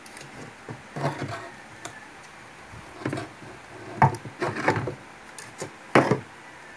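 A few short knocks and rubs of hands and tools handling a wooden speaker box and its horn driver, the loudest about four and six seconds in.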